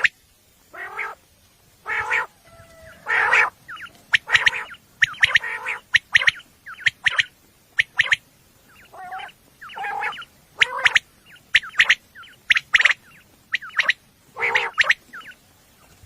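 Quail calling: short, sharp notes in quick clusters, repeated over and over with brief gaps, some of them lower and raspier.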